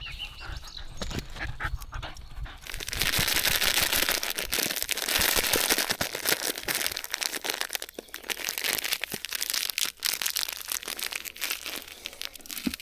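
A dog digging, its paws scratching and scraping at the ground in a dense, uneven run of scrapes. It starts about three seconds in and is loudest for the next few seconds.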